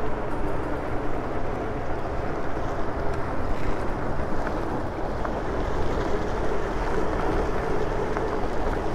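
Wind rushing over the microphone of a moving Super73 electric bike's camera, with the bike's fat tyres rolling over a rough dirt trail.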